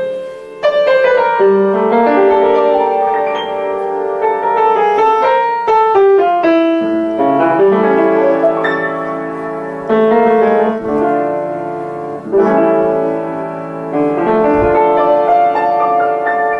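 Upright piano played solo: a melody over chords, with new chords struck every second or two and notes left ringing between them.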